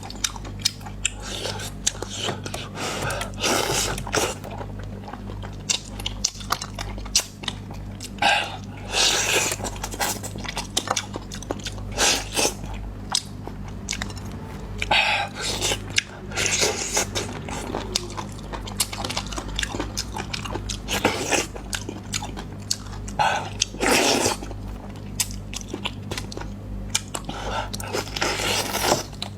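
A person eating close to the microphone: irregular bites and wet chewing, in mouthfuls of a second or so spread through the stretch, over a steady low hum.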